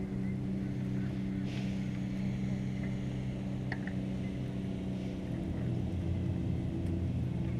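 Steady low engine drone, its pitch shifting slightly about five seconds in.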